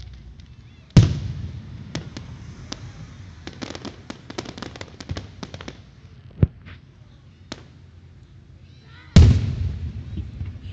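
Aerial firework shells bursting: two heavy booms about eight seconds apart, each trailing off in a long rumble, with a run of scattered sharp pops and crackles between them.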